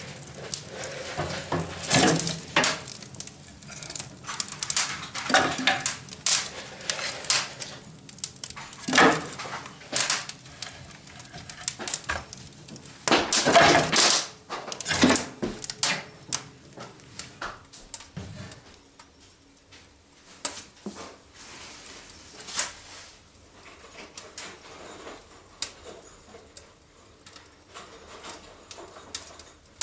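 Irregular clattering and knocking of hard objects being handled, with a loud cluster of knocks in the middle, then sparser and fainter knocks toward the end.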